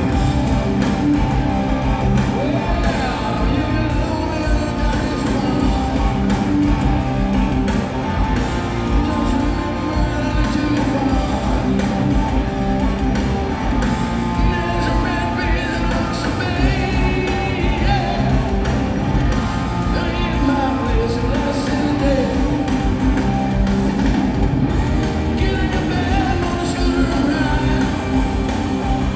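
Rock music: a band with electric guitar playing under a male lead singer, at a steady, loud level.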